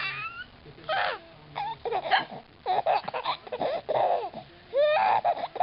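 Baby laughing in a string of short, high-pitched bursts.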